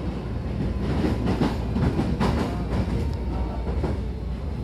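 Hankyu Takarazuka Line electric train running, a steady low rumble with a stretch of wheel clatter over rail joints.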